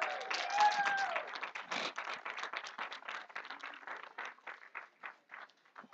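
A congregation applauding: dense hand-clapping that thins out and dies away over a few seconds.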